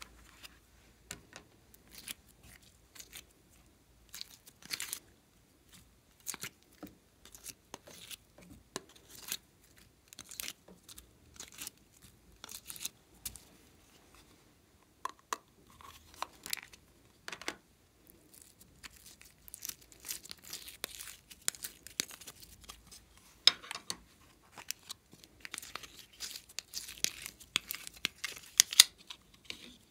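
Hands handling plastic slime containers and squeezing slime out of them: irregular crackles and clicks, growing denser and louder in the last third.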